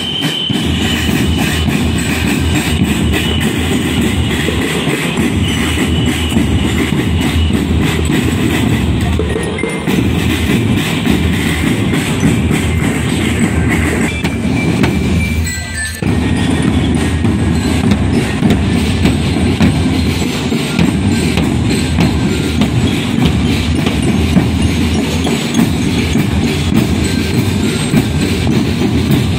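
Marching drum band drumming: massed snare and tenor drums with bass drums beating a dense, continuous rhythm. It dips briefly about sixteen seconds in, then carries on.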